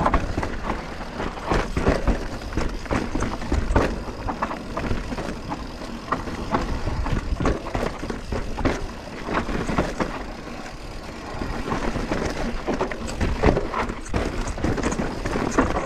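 Mountain bike ridden fast down a dirt trail: steady wind rumble on the microphone, with frequent rattles and clacks from the bike over rough ground.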